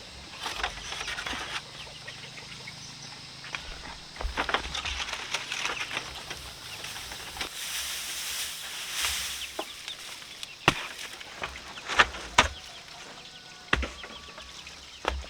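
Chickens clucking, with several sharp knocks or clicks in the second half.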